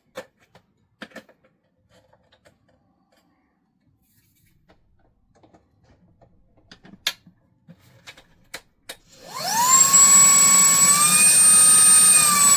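Day Plus YC777 cordless handheld vacuum: a few light plastic clicks and handling noises as the filter is refitted. About nine seconds in the motor switches on, its high whine rising quickly to a steady pitch over a loud rush of air, then stepping up slightly a moment later.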